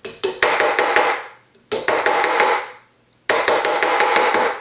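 A sterling silver cuff bracelet being hammered on a metal bracelet mandrel to shape its ends: three bursts of quick blows, several a second, each with a metallic ring.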